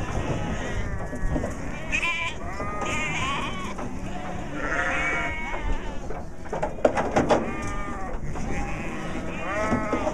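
A flock of sheep and lambs bleating, many overlapping calls that rise and fall in pitch, as they are unloaded from a livestock trailer. A few sharp knocks come a little past the middle.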